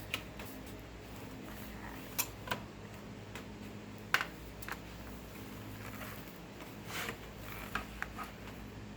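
Scattered light clicks and taps, about eight of them at irregular intervals, over a low steady hum.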